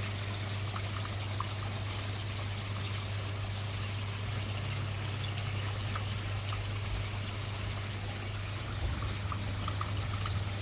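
Water trickling and pouring steadily into a koi pond, over a steady low hum.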